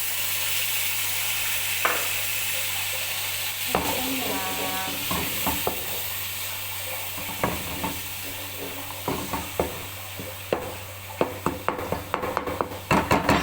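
A pan of tomato sauce sizzling hard after a little water has gone into it, the hiss gradually dying down. A spoon stirs the sauce and knocks and scrapes against the pan, the clicks coming more often near the end.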